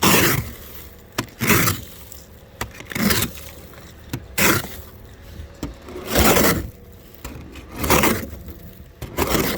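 Ice scraper scraping a sheet of frozen-rain ice off a car, in about seven separate strokes, one every second and a half or so.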